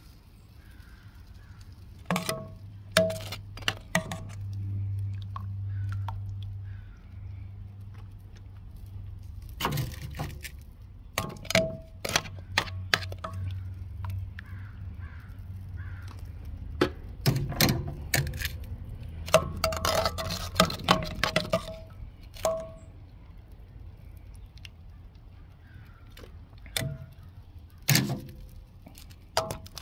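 Metal tongs clinking and tapping against the rim of a stainless steel saucepan as chicken pieces are dipped in barbecue sauce: scattered sharp clinks with a brief ring, in bunches a few seconds apart, over a low steady hum.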